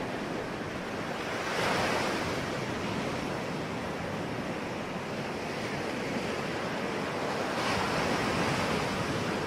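Ocean waves breaking and washing on a shore in a continuous rush, with two waves swelling louder, about a second and a half in and again near the end.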